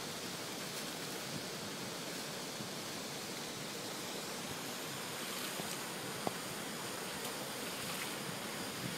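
Steady rush of water as an elephant sprays water over its back with its trunk and splashes in a pool. A single small click about six seconds in.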